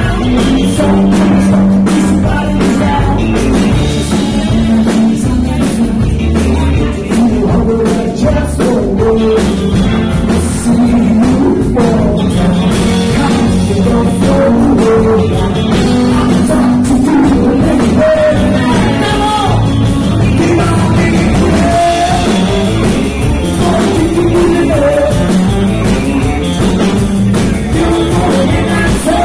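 Live rock band playing loudly: electric guitars, electric bass and drums, with a male lead vocal.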